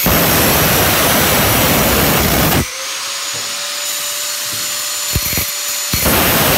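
Angle grinder cutting down through a magnetron's aluminum cooling plates with a harsh grinding noise. For about three seconds in the middle the disc comes off the metal and the grinder runs free with a steady whine. Near the end it bites in and cuts again.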